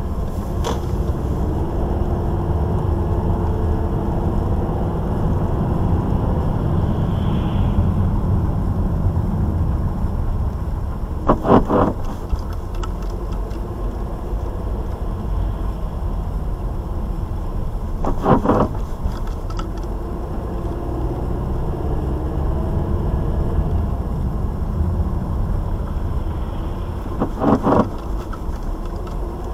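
Volkswagen Tiguan's anti-roll bar bushings squeaking in three short creaking bursts several seconds apart, over the car's steady low rumble. It is the squeak of the stabilizer bar bushings.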